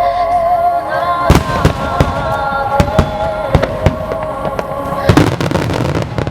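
Fireworks shells bursting overhead with several sharp booms, then a dense crackling run of many small bursts near the end, over music with a held, wavering melody line.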